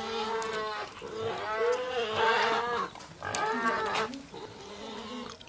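A cow mooing three times in drawn-out calls. The middle call is the longest and wavers in pitch.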